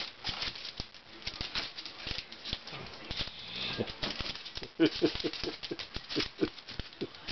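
Small Cairn Terrier mix dogs' claws clicking and scrabbling on a wooden floor and door as they jump after a laser dot. About five seconds in there is a run of louder knocks as paws hit the door.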